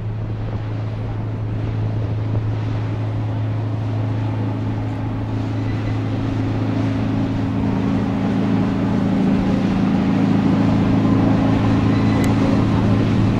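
Diesel engine of a passing fishing boat, a steady low drone made of several tones, growing louder as the boat comes closer.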